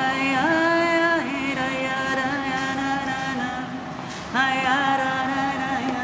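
A woman singing solo without accompaniment, a slow Jewish liturgical song (piyut) in long held notes that glide between pitches. One phrase ends about a second in and a new, louder phrase begins a little past four seconds.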